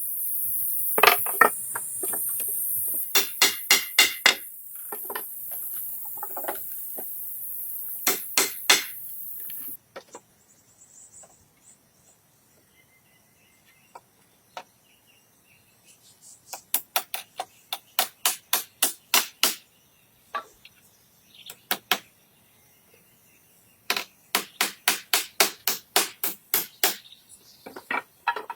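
Runs of sharp knocks from hand tools striking wood, fast and even in the second half at about five blows a second. A steady high hiss sits behind the strikes in the first third and cuts off suddenly.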